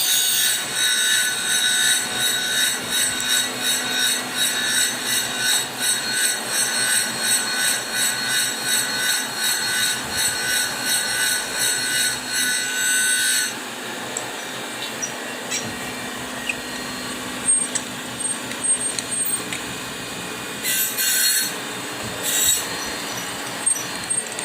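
Surface grinder wheel grinding a slot in a hardened D2 steel flat bar: a hissing grind that pulses in a fast even rhythm. About halfway through the grinding stops and only the quieter running of the machine remains, with two short bursts of grinding near the end.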